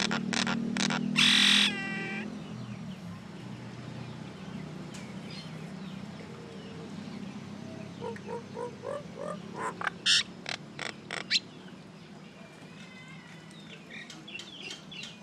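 Common myna calling: a loud harsh squawk with a falling tail about a second and a half in, then scattered clicks and chattering notes, and a quick run of sharp calls around ten to eleven seconds in.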